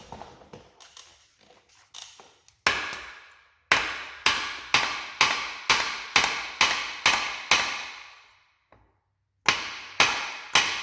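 Hammer blows on the steel pinion yoke of a Ford 8-inch rear end, trying to tap it off its splines: a single strike, then a steady series of about two ringing metal blows a second. The blows pause briefly near the end, then start again.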